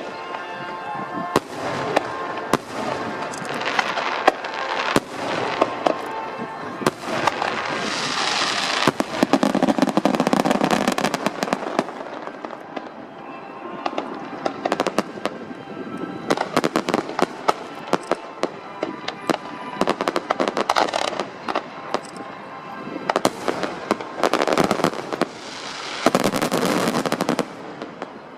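Aerial fireworks show: a dense run of bangs and crackling shells. It swells into heavy crackle about a third of the way in and again near the end, then cuts off suddenly.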